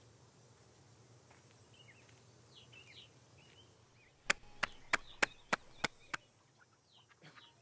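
Seven sharp, evenly spaced raps, about three a second, a visitor calling at a house. Faint bird chirps before and after.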